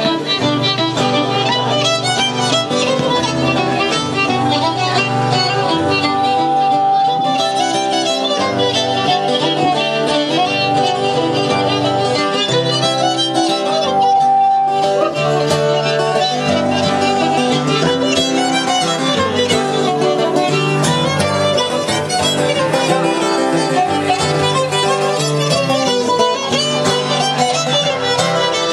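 A fiddle playing a tune with guitar accompaniment, continuous and even in loudness.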